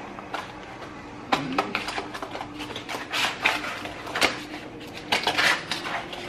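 Objects being handled at close range: a string of sharp clicks, clinks and knocks with short bursts of rustling.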